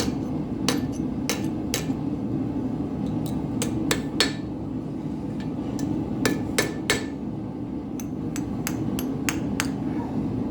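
Hammer blows on hot steel at the anvil, forging the rose-pattern head of a hand-made nail: sharp ringing strikes at irregular intervals, some in quick runs. Under them is the forge's steady noise.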